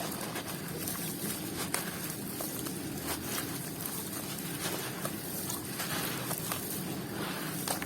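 Crunchy balls of dried, crumbly material being crushed and crumbling: steady dense crackling with a couple of sharp snaps, one about two seconds in and one near the end.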